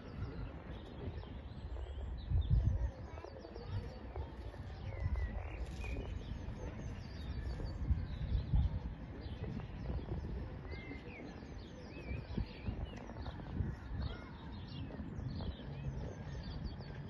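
Small birds chirping and singing in many short, quick calls, over a low rumbling noise that swells about two and a half seconds in and again around eight seconds.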